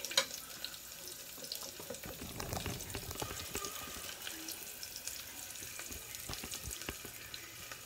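Onion and garlic sautéing in oil in a rice cooker's inner pot: a steady crackling sizzle with many small pops. A sharp knock just after the start and some handling rumble a couple of seconds in.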